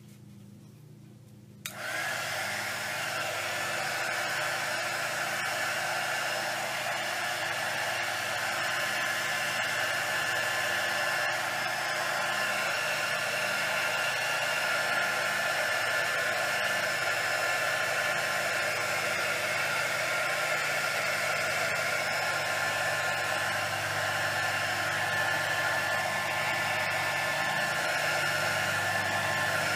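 Small corded handheld electric air blower switched on about two seconds in, then running steadily with a whirring whine, blowing across wet resin to push the white foam into wave shapes.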